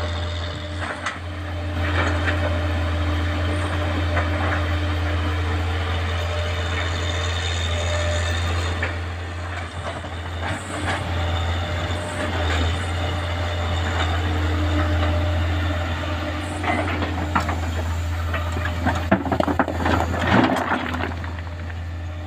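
Heavy diesel engine of an excavator at work loading sand and rock, running with a steady low drone, with a burst of knocks and clatter near the end.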